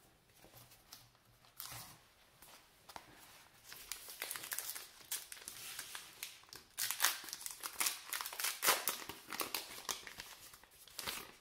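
Wrapper of a Topps Gypsy Queen baseball card pack crinkling as it is torn open by hand. There are a few soft handling ticks at first, then crackling that grows dense from about four seconds in.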